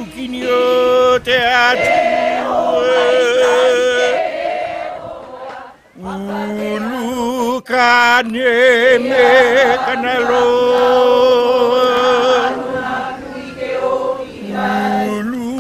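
Hawaiian chant (oli) with long held tones and a strong wavering vibrato. It breaks off about five seconds in and resumes about a second later at a lower pitch.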